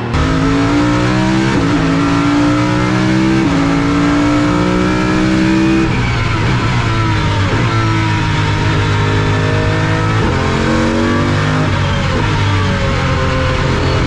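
Pagani Huayra R's naturally aspirated V12 at full throttle, heard from inside the cockpit. Its pitch rises and drops back about every two seconds as it shifts up through the gears.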